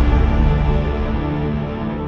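Background music: held low notes over a heavy bass, slowly getting quieter.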